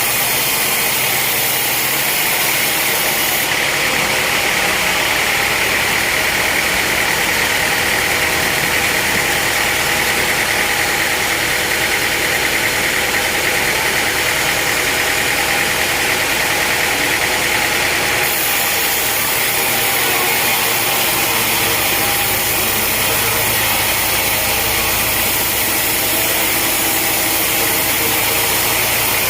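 Sawmill machinery running steadily with a loud engine-like drone. The sound changes character about eighteen seconds in.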